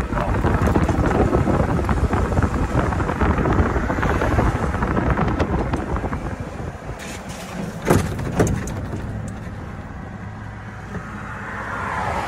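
Golf cart driving on a paved road, a steady rumbling driving noise that eases off about halfway through as the cart slows, with two sharp knocks about eight seconds in.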